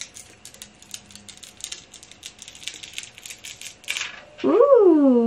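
Light clicking and crackling of fingers handling and tapping a plastic-wrapped eyeshadow palette, a quick, uneven run of small clicks. Near the end a woman lets out a drawn-out 'ooh' that rises and then falls.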